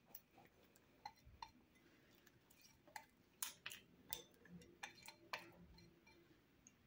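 Faint, scattered clicks and taps of a silicone spatula and glass bowl knocking together as thick pepper-paste sauce is scraped out of the bowl. The taps are sparse at first and come more often in the middle.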